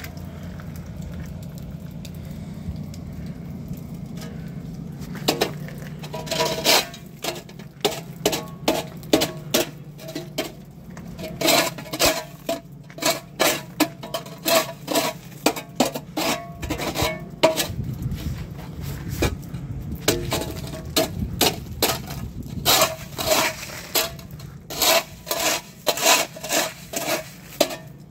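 A shovel blade chopping and scraping a crust of ice off a concrete path, the ice cracking into plates that clatter and tinkle. The sharp strikes start about five seconds in and come in irregular runs, often one to three a second.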